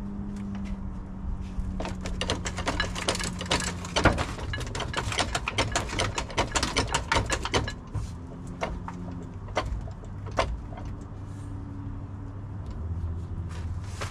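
Metal clicks and knocks from hand work on the SM465 transmission and bell housing as it is eased back from the engine block. A fast run of clicks in the middle gives way to a few single knocks, over a steady low hum.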